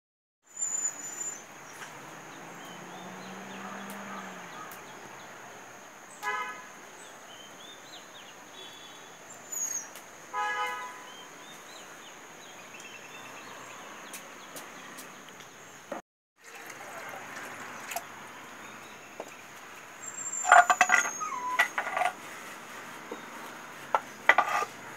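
Outdoor ambience with a steady high-pitched whine over a hiss, broken by two short vehicle-horn toots about six and ten seconds in. Near the end comes a quick run of knocks and clatter.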